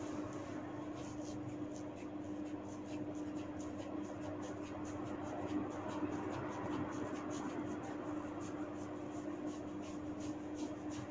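Hair being tugged and twisted at the roots in hair-cracking, giving a quick, irregular run of small crackles and snaps throughout, over a steady low hum.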